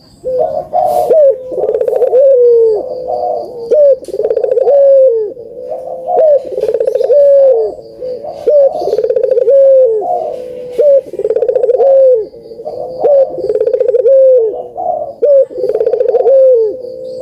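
Puter (domestic collared dove) cooing over and over, about one call every two seconds. Each call has a fast rolling stretch that ends in a falling note.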